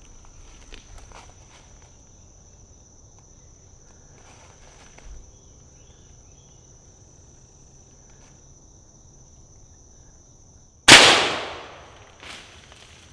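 A single loud, sharp gunshot about eleven seconds in, echoing briefly and trailing off over about a second: a hunter's shot at a squirrel that brings down the first squirrel of the day.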